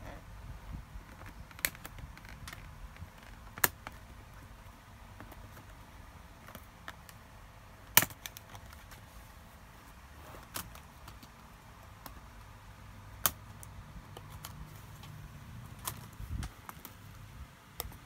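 Sharp plastic clicks and snaps, about eight of them spread out, the loudest about eight seconds in, as a plastic card is worked along the edge of an Acer V5-431 laptop keyboard to pry it out of its clips.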